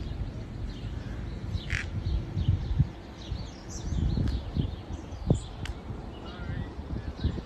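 Birds calling, a few short high calls scattered through, over a low uneven rumble with a couple of sharp thumps.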